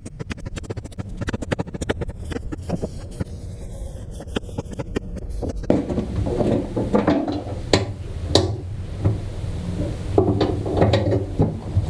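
Workshop handling noises: quick clicks and knocks of lumber and hardware being worked, changing abruptly about six seconds in to denser rubbing and knocking.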